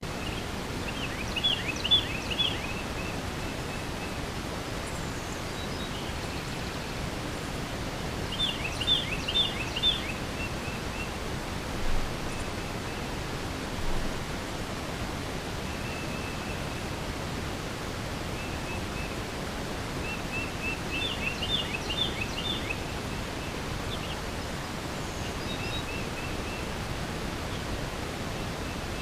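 Outdoor morning ambience of steady hiss, with a songbird repeating the same short song three times: a few quick, high, falling notes run into a brief trill. A few softer single calls fall between the songs.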